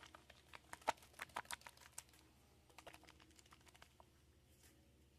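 Faint, irregular clicks and taps of a small plastic paint dropper bottle and its cap being handled. They come thickest in the first two seconds, with a few more around three seconds in.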